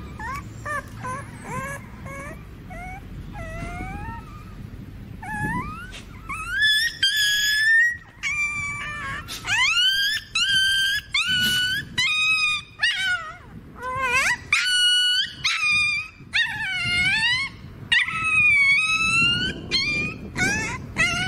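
Puppy whimpering softly, then from about six seconds in crying out in a run of loud, high, rising yelps, one after another, as mango worm larvae are squeezed from its skin.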